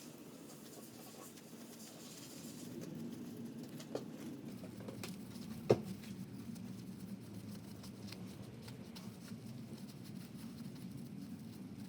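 Faint scratching and tapping as the parts of an inner CV joint are handled and cleaned of old grease on the bench, with a light tap about four seconds in and a sharp knock of a part just under six seconds in.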